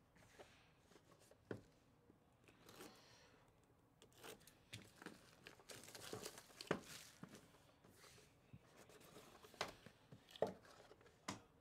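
Faint handling noise of a cardboard trading-card hobby box being opened and its contents lifted out: soft paper and cardboard rubbing with scattered light taps and clicks, a few sharper ones in the second half.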